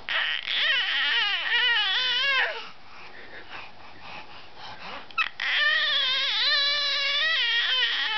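A baby making long, drawn-out whiny cries, high-pitched and wavering up and down. There are two of them: one of about two seconds at the start, and one of about two and a half seconds in the second half.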